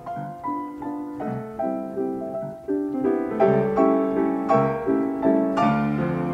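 Upright player piano playing a paper roll of a waltz, a melody over chords, getting louder about three seconds in.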